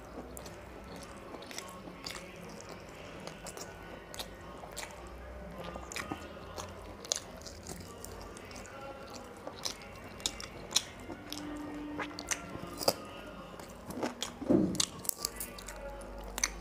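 Close-miked mouth sounds of a person eating chicken curry and rice by hand: chewing and biting, with many short clicks throughout and a louder sound near the end.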